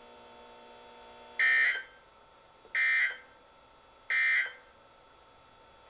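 Three short, identical bursts of Emergency Alert System digital data tones (SAME AFSK warble) about 1.4 seconds apart: the end-of-message code that closes an EAS alert.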